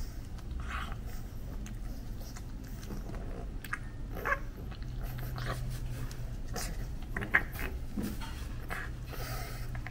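Two pug puppies chewing and mouthing a plush toy, a string of short, irregular mouth and chewing sounds with a sharper click about four seconds in and another near the seven-second mark, over a steady low hum.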